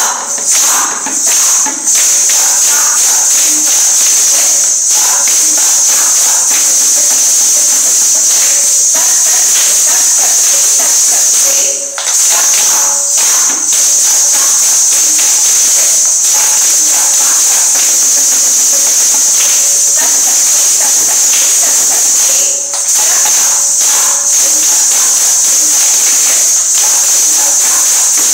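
Ghungroo (Kathak ankle bells) on several dancers jingling continuously with their stamping footwork, with brief breaks about twelve and twenty-two seconds in.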